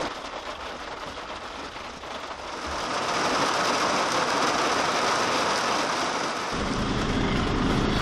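Steady rain falling. About two-thirds of the way through, a low vehicle engine rumble cuts in under it.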